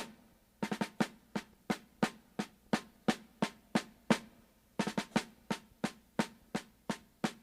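Snare drum playing a steady marching beat of sharp strikes, about three a second, with a short pause midway.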